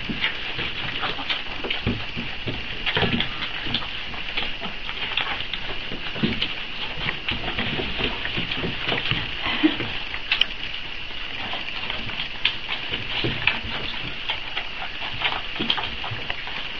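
Four-week-old Boxer puppies nursing from their mother: a busy, unbroken run of small wet smacking clicks as the litter suckles.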